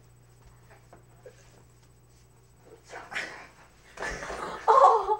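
A girl laughing in short breathy bursts, starting about three seconds in and getting louder near the end, after a quiet start.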